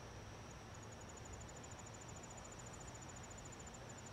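Crickets chirping faintly in a summer night: a steady high tone with a rapid high pulsing, about a dozen pulses a second, that starts about half a second in, over a low hiss.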